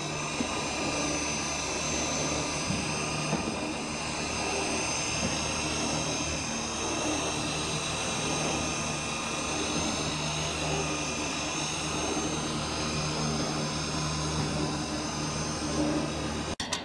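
Electric roof seaming machine running as it travels along and crimps the seam between curved steel roof panels: a steady whine of several high tones over a low hum. It breaks off suddenly near the end.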